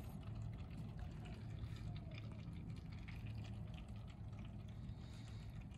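Engine oil running out of the drain hole of a 2002 Toyota 4Runner's oil pan into a drain pan, a faint steady pour just after the drain plug is removed.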